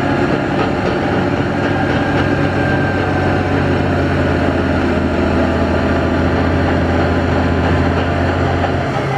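Cat D10 crawler dozer's V12 diesel engine running steadily at a constant pitch.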